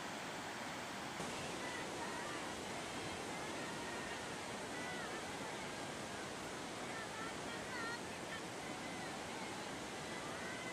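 Steady rushing noise, with faint, short, high-pitched calls over it now and then.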